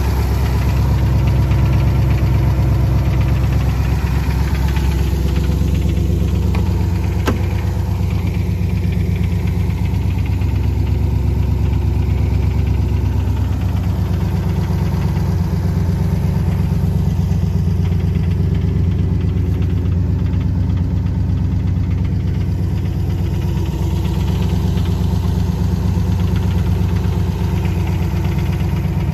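1964 Studebaker Avanti's V8 engine idling steadily.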